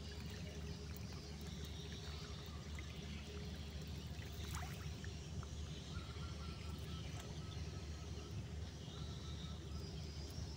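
Water pouring and trickling off a hancau lift net as it is hauled up out of a river, over a steady low rumble.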